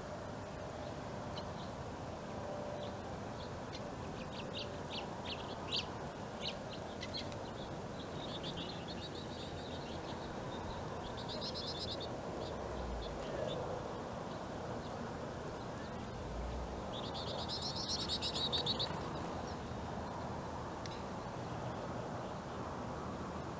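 Small finches at a seed feeder calling, lesser goldfinches by their look: a run of short, high chirps in the first several seconds, then buzzy trills, the longest and loudest about eighteen seconds in. A steady low background noise runs underneath.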